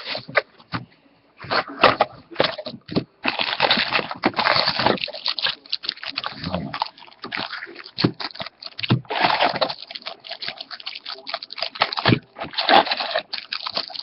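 A trading-card box being opened by hand: a dense run of crinkling, tearing and scraping as the wrapping and cardboard come off and the packs inside are handled.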